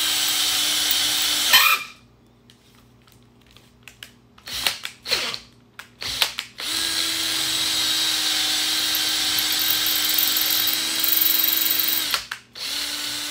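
Craftsman cordless drill running under load as it bores a dowel-pin hole into an engine block through a drill-fixture bushing. It runs in three bursts: a short one at first, then a few knocks and clicks, then a long steady run of about five seconds and a brief final burst. A cheap drill that isn't cutting well.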